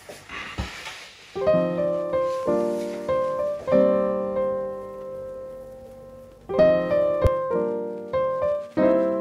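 Background music: piano chords struck one after another, each left to ring and fade, with one chord held longer in the middle.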